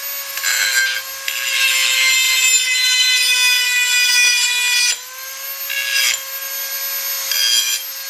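Dremel 4000 rotary tool running at a steady high whine, its grinding wheel pressed against the steel edge of a garden hoe in several bursts of grinding, the longest lasting about three and a half seconds. The wheel is worn and due for replacement.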